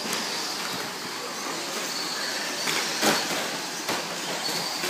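Stock-class 1/10 electric short-course RC trucks racing on a dirt track: high motor and gear whines come and go over a steady hiss of tyres on dirt. Several sharp knocks are heard, the loudest about three seconds in.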